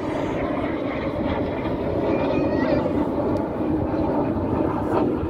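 Jet engines of a formation of display jets flying past, a steady rush of engine noise.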